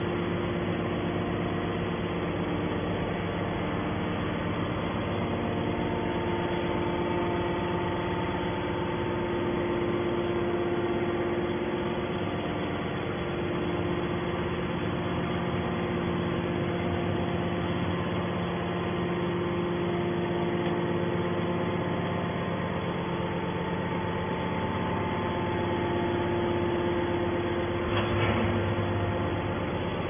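Hydraulic scrap-metal baler's power unit (electric motor and pump) running with a steady hum and a few held tones that come and go. A short clatter comes about two seconds before the end.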